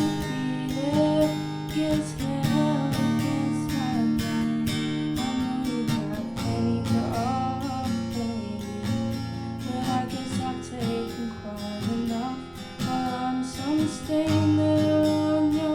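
Acoustic guitar strummed steadily in a live song, with a voice singing a melody over it.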